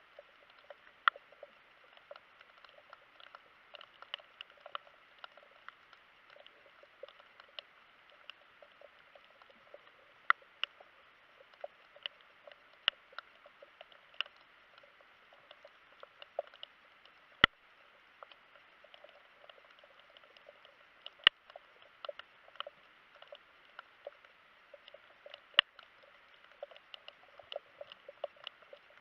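Underwater crackle of many irregular sharp clicks, with a few much louder single snaps scattered through.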